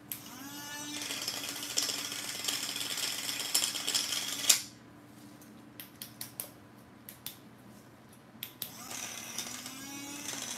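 Electric tobacco grinder spinning up with a rising whine and running, its blades grinding a piece of chalk with acrylic powder in the clear chamber. It cuts off suddenly about four and a half seconds in. After a few light clicks it starts again near the end, whining up to speed.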